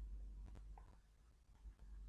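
Near silence: faint room tone with a steady low hum and a faint click about half a second in.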